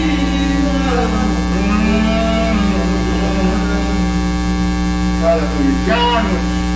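Steady electrical mains hum with a buzz of many even tones, loud and unchanging, with faint voices underneath it about a second in and again near the end.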